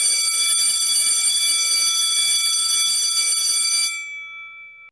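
Electric school bell ringing loudly for about four seconds, then stopping, its tone dying away over the last second.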